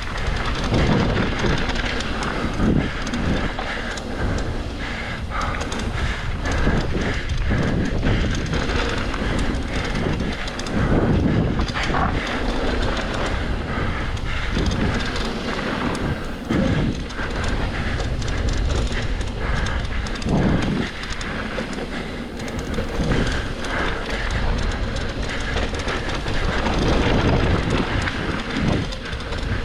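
Mountain bike clattering and rattling continuously as it rides down a rough trail, with irregular knocks from bumps and steady rumble.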